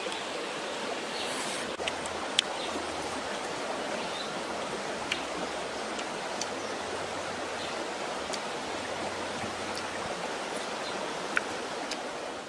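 Shallow stream running steadily over rocks, with a few sharp clicks now and then.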